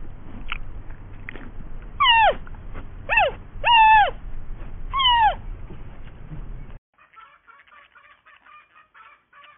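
An animal's short, high calls, each sliding down in pitch: two faint ones, then four loud ones about a second apart, over a low rumble. The rumble and calls cut off abruptly about seven seconds in, leaving faint chatter.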